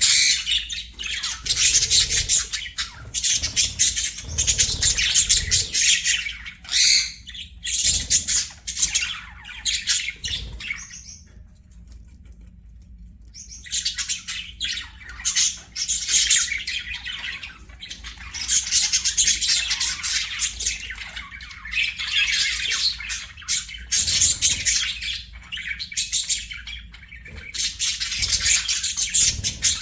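Budgerigars chattering and chirping continuously in quick, overlapping high calls, with squawks mixed in. The chatter drops off for a few seconds about halfway through, then picks up again.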